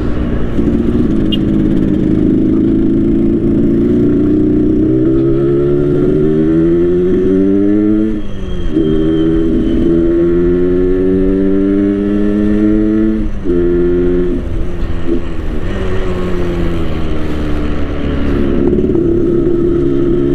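Yamaha RX King 135 cc two-stroke single-cylinder motorcycle engine, tuned to the 'ngorok' setting for a rumbling exhaust note, pulling under way. Its note climbs, falls away sharply about eight seconds in and again about thirteen seconds in, then runs steadier.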